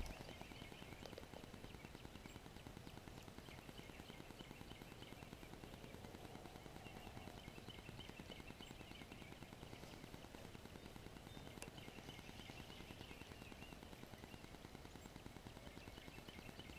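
Near silence: faint outdoor ambience beside a still pond.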